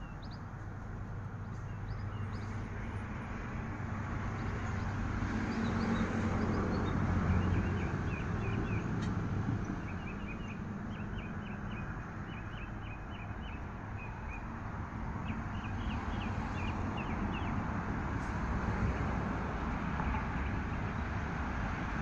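Steady road-traffic noise, swelling as a vehicle passes a few seconds in. Through the middle there are several quick runs of faint, high small-bird chirps.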